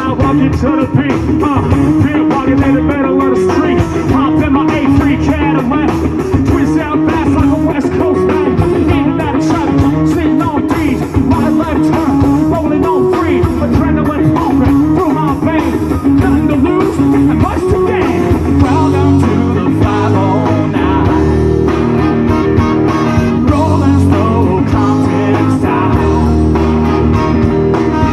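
Live band playing: electric guitar, drums and bass with a vocalist on a microphone. The music moves into a new section about two-thirds of the way through.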